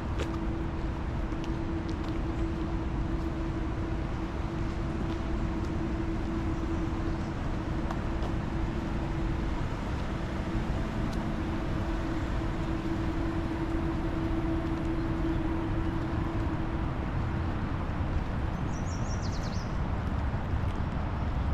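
Steady outdoor background noise with a distant motor humming steadily on one low note, which fades out about three-quarters of the way through. A bird gives a short, quick chirp near the end.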